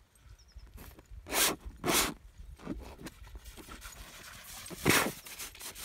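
Palette knife scraping paint across a canvas in about five short, separate swipes, the loudest near the end.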